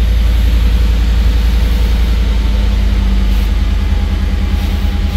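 2013 Ford F-150's engine idling steadily, a continuous low rumble with a steady tone added about two seconds in.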